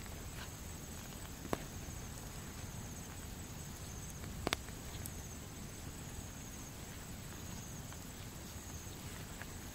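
Outdoor ambience: insects trilling steadily at a high pitch over a low rumble. Two short sharp clicks sound, one about a second and a half in and one about four and a half seconds in.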